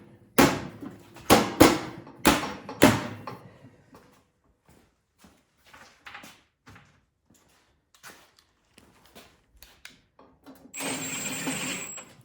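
Sheet-metal belly pan of a snowblower being fitted back on: several loud metal clanks in the first three seconds, then scattered light clicks as the bolts are started, and a short whir of about a second and a half near the end, with a thin high whine, as a bolt is run in.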